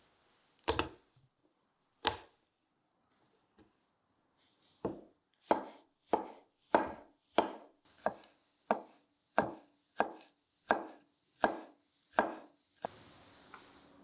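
Chef's knife on a wooden cutting board. First come two heavy thumps as garlic cloves are smashed under the flat of the blade. From about five seconds in, a steady run of about a dozen chops, roughly one and a half a second, as the garlic is minced.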